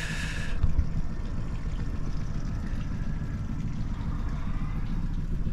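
Boat motor idling, a steady low rumble, with a brief rustle at the start.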